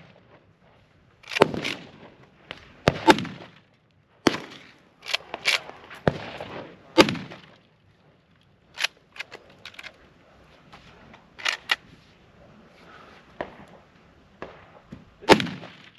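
Big Horn Armory Model 89 lever-action rifle in .500 S&W Magnum firing several loud single shots a few seconds apart, with the sharp metallic clacks of the lever being cycled between shots.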